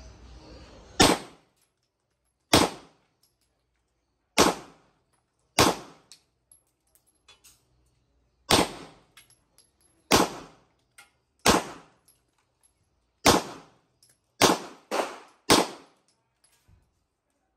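Taurus G3 TORO pistol firing eleven shots at an unhurried pace, one every second or two, with the last three fired in quick succession about half a second apart. Each shot is a sharp crack with a short decay.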